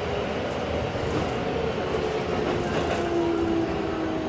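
Keikyu 1700 series train running, heard on board: steady wheel and rail rumble with the thin whine of its Toyo GTO-thyristor VVVF inverter and traction motors, the tones drifting slowly down in pitch.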